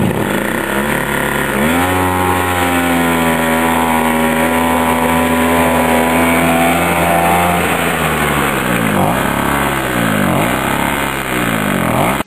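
The small engine of a 1977 Arctic Cat Kitty Cat snowmobile running and being revved. Its pitch climbs about two seconds in and holds high for several seconds, then drops and is blipped up and down repeatedly.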